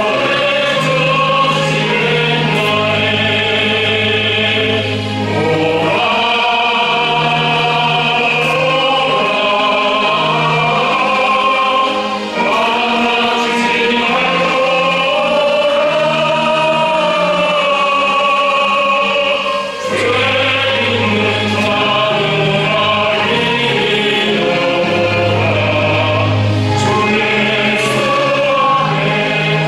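Choir singing a slow hymn with orchestral accompaniment, sustained chords over held bass notes.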